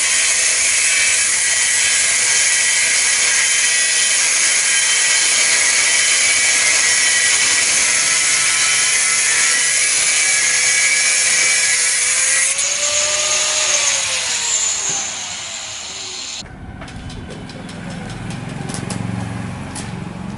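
Handheld angle grinder cutting steel: the disc runs against the metal with a loud, steady high-pitched hiss and whine. About 12 seconds in the cut stops and the motor's whine falls steadily as the disc spins down. Near the end, a few light clicks and knocks as tools are handled.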